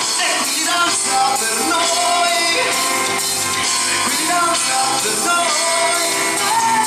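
Live rock music played by a band, with a male singer's voice over it.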